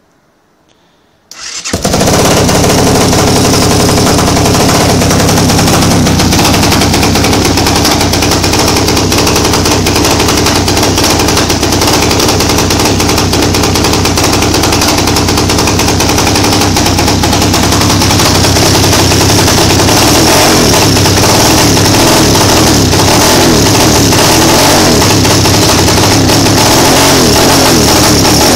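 A Dirtmax pit bike's 250cc Honda engine starts about a second in, then runs steadily and loud.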